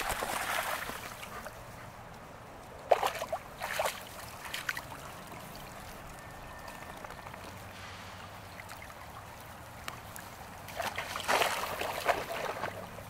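Water splashing as Labrador puppies and a larger dog wade in the shallows, in short bursts at the start, about three seconds in, and again near the end.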